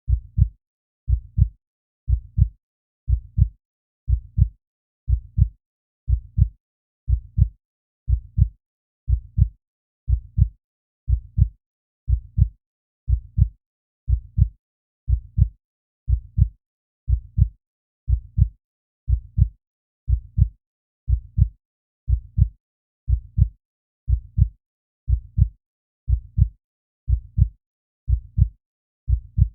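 Slow, steady heartbeat: paired lub-dub thumps repeating evenly at about one beat a second.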